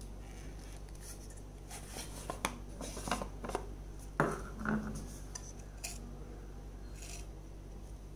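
Plastic lid and casing of a glass sipper bottle being handled and pulled open: scattered clicks, knocks and rubbing of hard plastic, the sharpest few between about two and a half and six seconds in. A steady low hum runs underneath.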